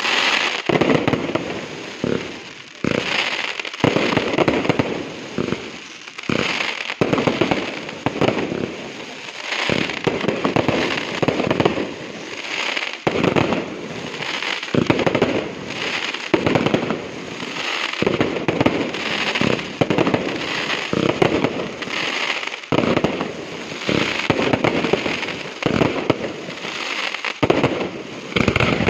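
Aerial fireworks display: shell bursts and bangs going off in rapid succession, loud throughout with only brief lulls.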